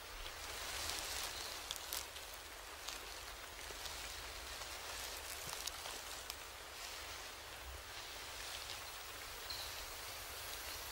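Night-time forest ambience: a soft, steady hiss with scattered light patters and drips, and a few faint high chirps near the end.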